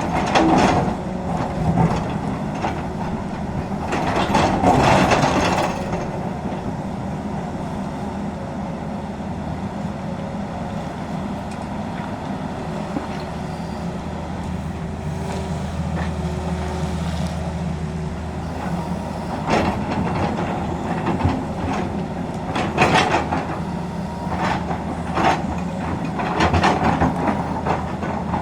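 Tata Hitachi excavator's diesel engine running steadily, with several loud bursts of metallic clanking and scraping from the bucket and tracks: near the start, around five seconds in, and repeatedly in the last third.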